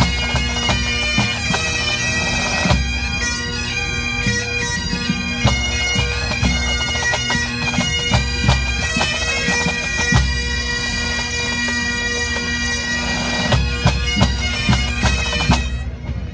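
A full pipe band playing: Great Highland bagpipes carry a melody over their steady drones, with snare drums striking throughout. Pipes and drums stop together sharply near the end, closing the set.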